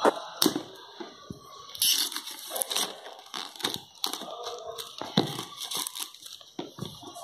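Clear plastic shrink wrap being slit with scissors and peeled off a cardboard phone box: irregular crinkling and tearing with sharp clicks, loudest in a burst about two seconds in.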